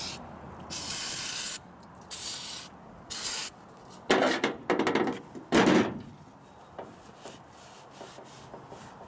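Aerosol brake cleaner sprayed in several short hissing bursts, then two louder rubbing strokes about four and five and a half seconds in as the parts are scrubbed clean.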